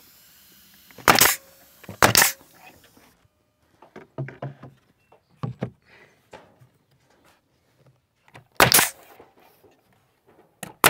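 Pneumatic 21-degree framing nailer driving nails into exterior trim: three loud, sharp shots, two about a second apart near the start and one near the end, with lighter knocks and taps in between.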